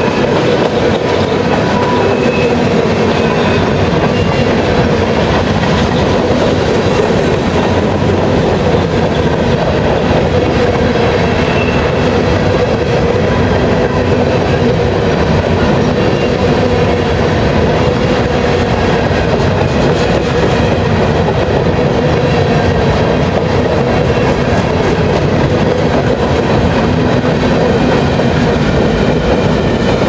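Freight train cars, covered hoppers and then boxcars, rolling steadily past: a continuous rumble and rattle of steel wheels on rail with a faint steady whine.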